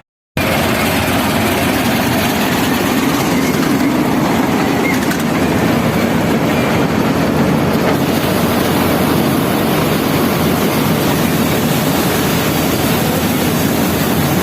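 Combine harvester running steadily at wheat harvest, a dense, even mechanical noise with a brief break at the very start.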